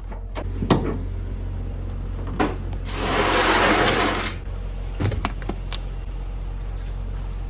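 Protective work suit being put on: scattered clicks and rustles, and a longer hissing rustle for about a second and a half about three seconds in, over a steady low hum.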